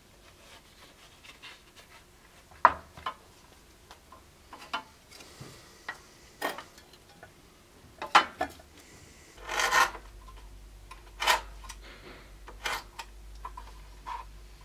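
Hands working leather on a workbench: rubbing and pressing leather, with scattered sharp clicks and knocks as tools and a tin are handled, and a short louder rustle about ten seconds in.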